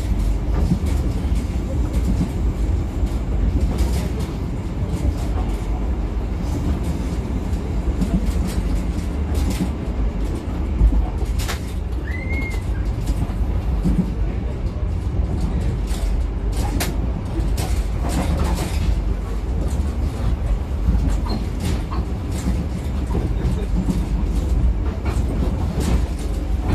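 Passenger train coach running on the rails, heard from inside the carriage: a steady low rumble with scattered clicks and knocks, and a brief high chirp about twelve seconds in.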